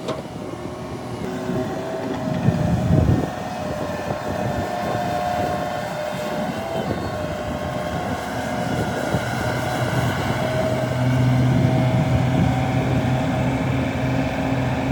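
Heavy diesel earthmoving machinery, an excavator and dump trucks, running under load. A louder low surge comes about two and a half seconds in, and a steady deep engine drone sets in from about nine seconds on.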